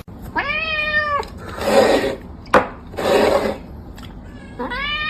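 Domestic cat meowing twice, two long, flat-pitched calls: one about a second in and one near the end. Between them come two rough, breathy noises and a single sharp click.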